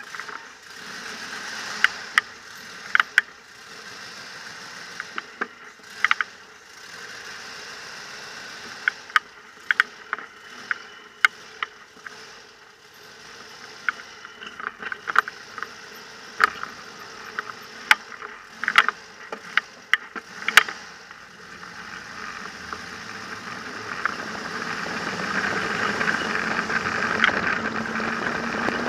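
A trike moving off at low speed, heard through a handlebar-mounted camera: sharp, irregular clicks and knocks of rattling over bumps, with the engine faint beneath them. Wind noise builds over the last few seconds as it gathers speed.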